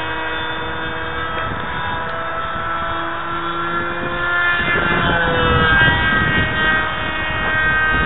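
Electric propeller drive of a radio-control foam F-22, a Turnigy 2632 1500kv brushless outrunner motor, whining in flight with several steady pitches. About halfway through the whine slides down in pitch. Wind rumbles on the microphone underneath, strongest in the second half.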